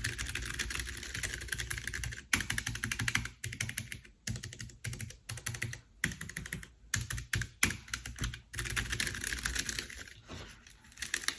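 Fast typing on a Keychron K3 Version 2 low-profile mechanical keyboard with Keychron optical brown switches: quick runs of key clicks broken by a few brief pauses.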